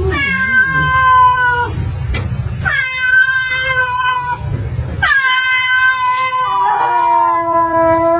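A domestic cat caterwauling: three long, drawn-out threat yowls of about two seconds each, a warning at a dog it is squaring up to. A second, lower-pitched yowl overlaps near the end, and a low growling rumble comes between the calls.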